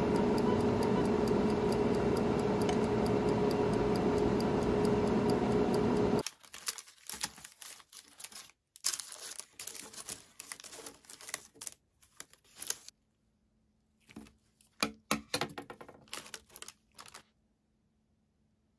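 A countertop drying appliance's fan running with a loud, steady whirring hum, which stops abruptly about six seconds in. Then scattered rustling and light clicks as firm chew sticks are handled on a paper liner.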